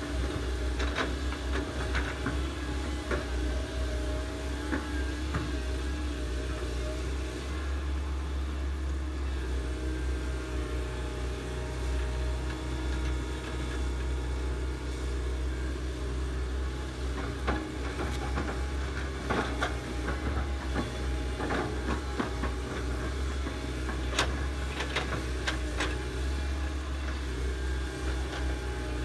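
Diesel engines of hydraulic excavators, the nearest a Komatsu PC130, running steadily under load as they dig. Scattered sharp knocks and clanks come through, mostly near the start and in the second half.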